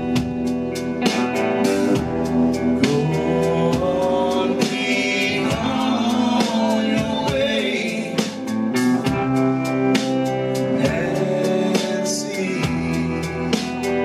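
Live rock band playing a song: electric guitars, bass and a drum kit, with male vocals singing over them.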